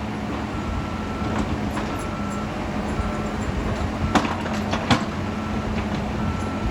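Heavy construction machinery running with a steady engine rumble, a reversing alarm beeping about once a second over it. Two sharp metal clanks come a little past the middle.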